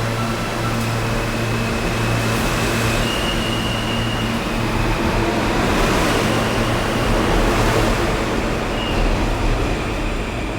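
New York City Subway R160 train running, a steady loud rumble and rush with a constant low hum and brief high-pitched whines, one about three seconds in and another near the end.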